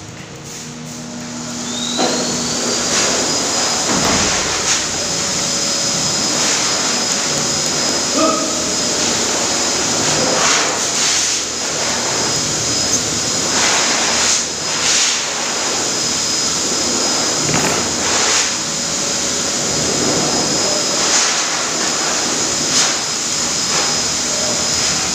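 Electric pet-grooming blower starting up about two seconds in: its motor whine rises to a high pitch and holds steady over a loud rush of air, with brief surges every few seconds.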